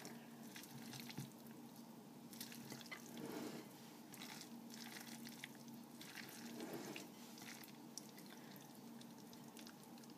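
Faint, wet squelching in irregular strokes as a silicone spatula folds mayonnaise-coated potato salad around a glass bowl.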